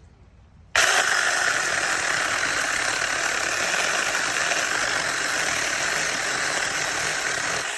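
Brushless cordless mini chainsaw switched on: its electric motor and chain start abruptly under a second in and run steadily at full speed. Near the end the trigger is released and the motor winds down.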